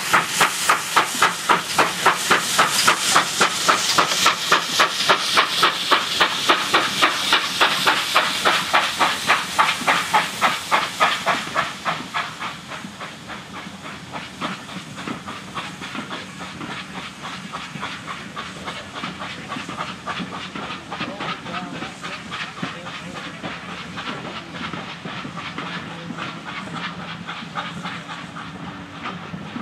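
GWR 56XX 0-6-2 tank locomotive under steam, its exhaust beating rapidly and evenly over a steam hiss. About twelve seconds in the beats fade as the engine moves away, leaving the quieter rattle of the coaches rolling past over the rails.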